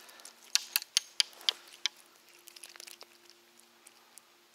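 Handling noise as small, freshly hooked fish are landed and dealt with: a quick run of about seven sharp clicks and knocks in the first two seconds, then a few fainter ticks.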